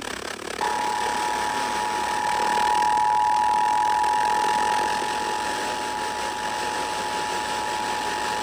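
Emergency Alert System two-tone attention signal over steady radio hiss. The two steady tones sound together, starting about half a second in and holding without a break; it is the alarm that heralds a broadcast emergency warning.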